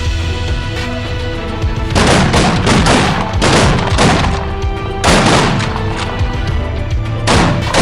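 A volley of about six shotgun blasts at geese, starting about two seconds in and spread over the next five seconds, heard over background music.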